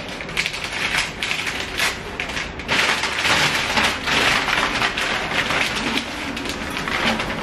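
Crumpled white wrapping crackling and rustling as it is pulled off a glass vase by hand. The crackling grows a little louder about three seconds in.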